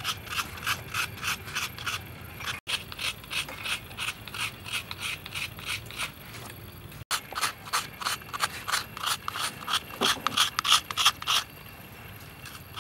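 Fresh coconut flesh being scraped out of a half shell with a hand-held metal coconut scraper: quick rasping strokes, about three or four a second. The strokes stop near the end.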